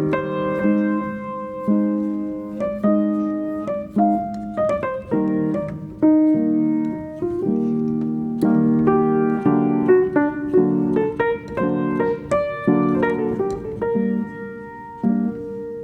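Background piano music: chords and melody notes struck and left to ring, with new notes every half second or so.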